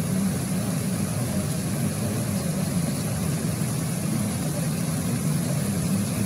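Flash-flood water rushing down a street, a steady low rush of moving water.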